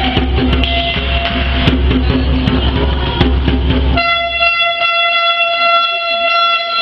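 Music with a steady bass plays, then cuts off about four seconds in. A long, steady horn tone takes over and is held.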